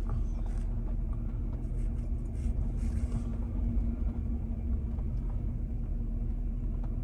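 A vehicle's engine idling steadily with a low, even hum, heard from inside the cabin.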